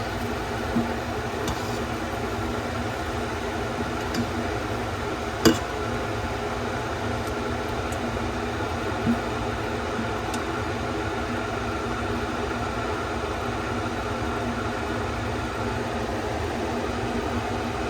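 Steady hum of a kitchen range-hood vent fan, with a few light clicks and taps of a utensil against the pot as tofu pieces are turned. The sharpest knock comes about five and a half seconds in.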